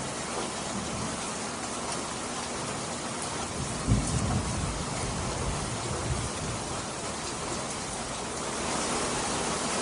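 Steady rain falling, with a clap of thunder about four seconds in that rumbles on for a couple of seconds.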